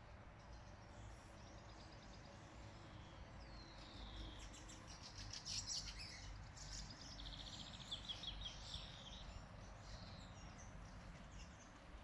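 A songbird singing high-pitched phrases: a falling slurred note, then a fast trill a few seconds in, over a faint low background rumble.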